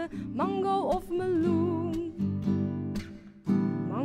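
A woman singing a Dutch children's song to a strummed acoustic guitar; the guitar drops away briefly a little after three seconds, then comes back in with a fresh strum.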